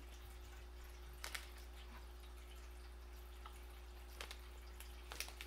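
Quiet room with a steady low hum and a few faint, wet clicks from a closed mouth chewing a sticky, very chewy salt-licorice candy.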